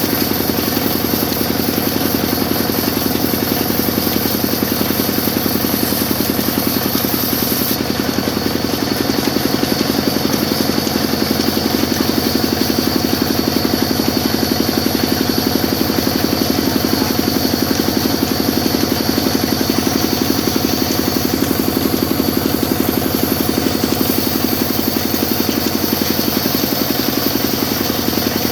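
Sawmill machine running steadily, a loud, even mechanical drone with a fast regular pulse.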